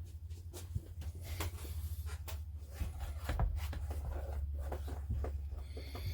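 Light scratching, tapping and rustling of hand work on a plastic scale model, in quick irregular strokes, over a steady low hum.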